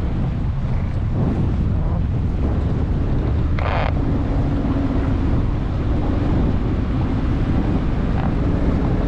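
Wind buffeting the microphone over a boat's engine running steadily. A steady engine tone settles in about a third of the way through, and there is one brief noise near the middle.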